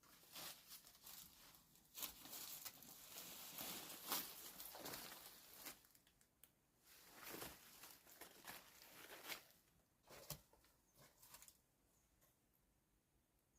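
Rustling and crinkling, busy for the first six seconds or so, then thinning to scattered sharp clicks and snaps.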